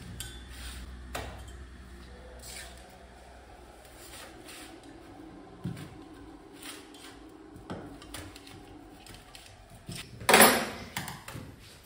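Metal scooter transmission parts handled and set down on a workbench: scattered light clicks and knocks, with one much louder clatter about ten seconds in.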